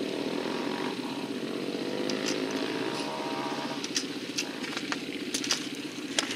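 Yamaha TT-R dirt bike's single-cylinder four-stroke engine idling steadily in neutral.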